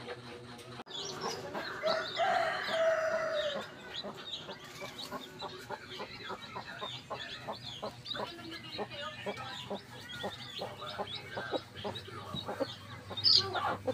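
Philippine native chickens: a rooster crows once about a second in, one long call, then chicks peep in quick high chirps and hens cluck while they feed.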